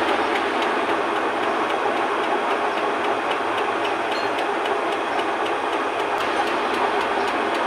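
Metal lathe running with a cylinder head bolted to its faceplate and spinning: a steady mechanical whir with faint, evenly spaced clicks.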